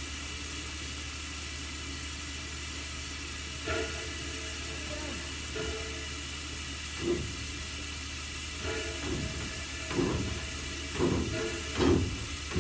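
Steam locomotive standing under steam, hissing steadily as steam escapes. Several short, louder sounds come and go over it, most of them in the last few seconds.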